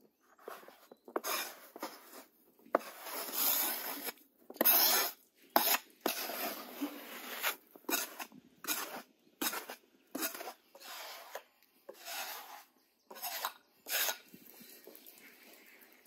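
Fresh snow being swept and shoved off a table top by hand: a dozen or so irregular swishing, scraping strokes, stopping near the end.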